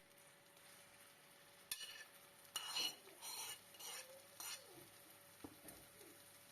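Marinated chicken pieces being moved and stirred in a hot oiled non-stick pan: about five short, faint bursts of sizzling and scraping between about two and four and a half seconds in, then a small click.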